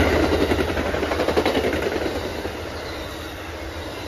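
Amtrak Northeast Regional passenger coaches rolling past at speed: steel wheels running on the rails with a few clacks about a second in. The sound fades over the first couple of seconds as the P42DC diesel locomotive draws away, then settles to a steady rumble of the passing cars.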